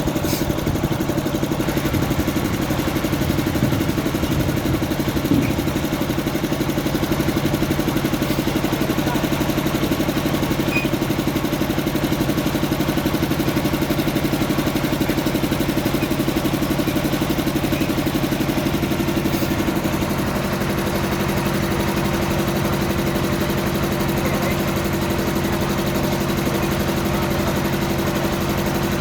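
Heavy diesel engine idling steadily. About twenty seconds in, its note shifts slightly and it gets a little quieter.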